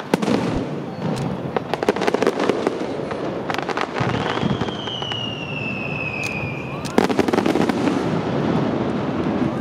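Fireworks display: a dense run of sharp bangs and crackling, heavier near the end, with a high whistle that slides slowly down for about three seconds in the middle.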